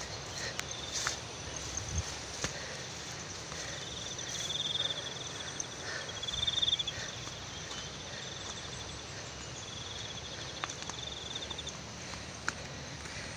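Insects trilling in repeated pulsing bursts, each lasting a second or two, over a steady high insect whine, the loudest trill a little past the middle. Scattered footsteps and clicks of someone walking through vegetation.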